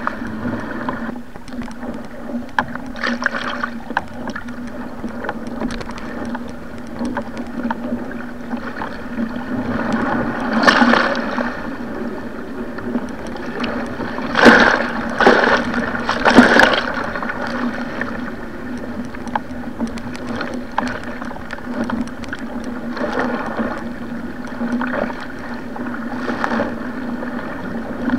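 Sea water rushing and splashing around a Stellar SR G2 surfski paddled downwind through rough, wind-driven waves, over a steady low hum. Louder bursts of splashing come about ten seconds in and again several times around fifteen seconds in.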